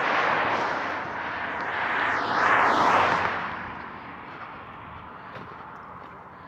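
A vehicle driving past, its road noise swelling to a peak about two and a half seconds in and then fading away.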